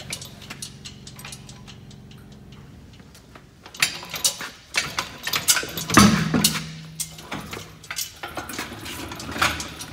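Irregular metallic clicks and clinks of lug nuts being worked off by hand at a semi truck's wheel held in a wheel dolly, with a steady low hum that stops a few seconds in.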